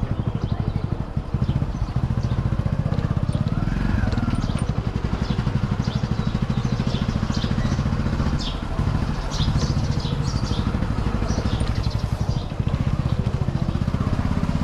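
Small vehicle engine running steadily with a fast, even firing pulse.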